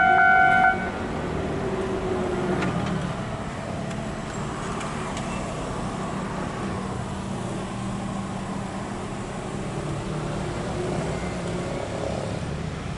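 A railway level-crossing warning bell rings in even strokes and stops under a second in. After it comes a steady low background rumble of vehicles.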